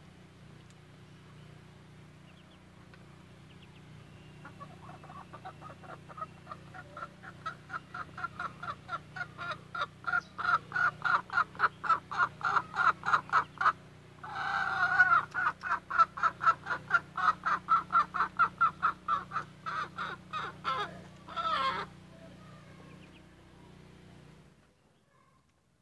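A hen clucking in a steady rhythm of about three to four clucks a second, building up and growing louder, broken twice by a louder drawn-out squawk, about halfway through and again near the end.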